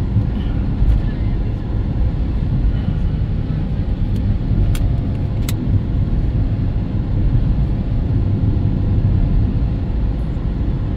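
A car on the move: a steady low rumble of engine and road noise, with two sharp clicks near the middle.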